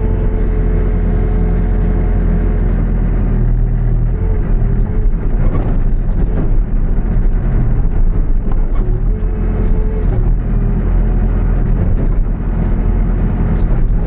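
New Holland B95B backhoe loader's diesel engine running steadily while the machine works, with a steady whine over it. A few short knocks and scrapes come about halfway through.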